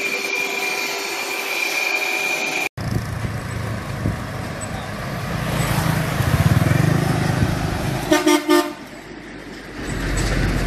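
Road traffic with heavy trucks driving past close by, their engines and tyres giving a low rumble that swells as one passes. A vehicle horn honks three short times about eight seconds in. Before a cut near the start there is a steady high whine.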